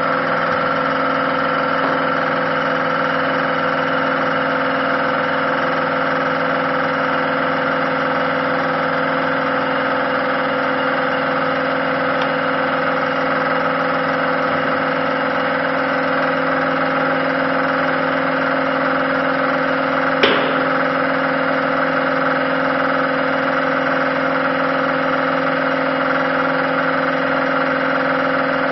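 Hydraulic high-pressure power unit of a HYDRO-TEC HP 1000 concrete press system running steadily with a constant droning hum, driving splitting cylinders that break a concrete floor slab. One sharp knock sounds about two-thirds of the way through.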